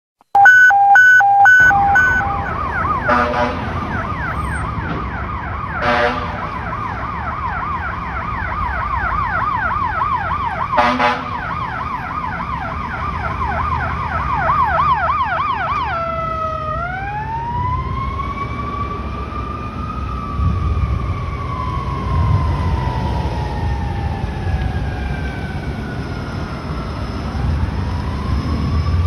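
Emergency vehicle sirens from a fire engine and a paramedic SUV responding. It opens with a second or so of rapid, loud electronic beeps, then a fast yelp broken by three short air horn blasts. About halfway through the siren switches to a slow wail that rises, falls and starts to rise again.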